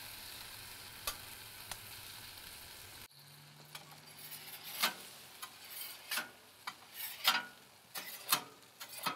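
Red onions and tomatoes sizzling on a hot griddle plate. About three seconds in, this gives way to a metal spatula scraping across the bare griddle in short repeated strokes, a little under two a second.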